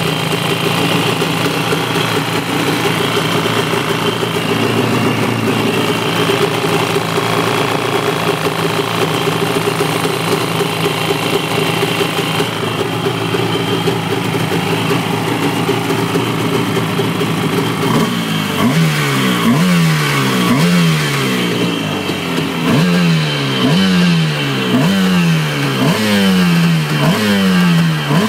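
Yamaha Wave Raider 700's two-stroke 700 cc twin engine idling steadily, then from about eighteen seconds in revved in quick blips that rise and drop back about once a second. This is a test run after the engine was removed and refitted on new engine mounts.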